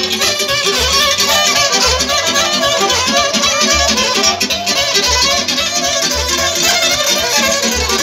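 Live folk band music, a violin carrying the melody over a steady low bass beat.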